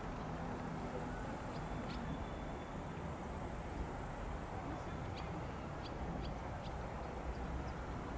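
Outdoor ambience: a steady low background rumble with several short, high bird chirps scattered through it.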